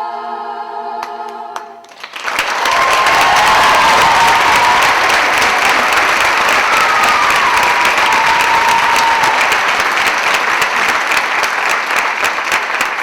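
An a cappella vocal group holds its final chord, which cuts off a little under two seconds in. Loud audience applause then breaks out and continues, with whistling over it for several seconds.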